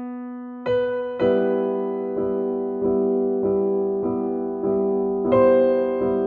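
Background music: electric piano playing slow sustained chords, struck again about every half-second and changing harmony a few times.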